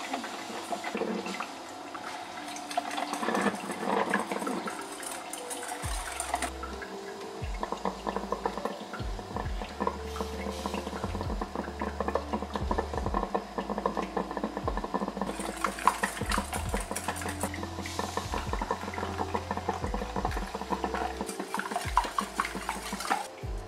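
Pancake batter being mixed in a stainless steel bowl: a metal spoon and a balloon whisk clinking against the bowl and stirring wet batter, in rapid runs of clicks. Background music with a low bass line comes in about six seconds in.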